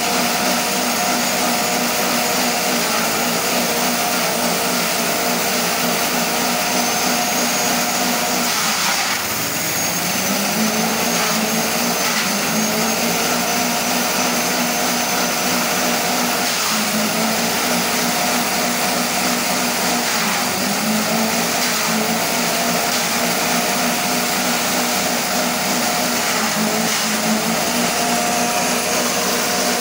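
Small petrol engine driving a chaff cutter (grass chopper) running steadily at speed. Its pitch sags briefly and climbs back as stalks are fed into the blades and load it, most deeply about nine seconds in and a few more times later.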